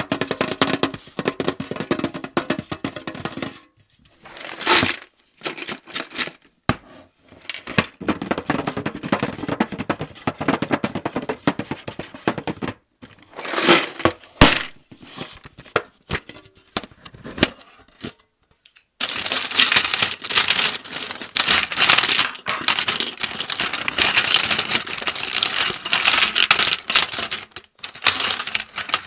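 Close-miked ASMR trigger sounds: rapid clicks and taps on objects with short pauses between runs, turning about two-thirds through into a denser, continuous scratchy rustle.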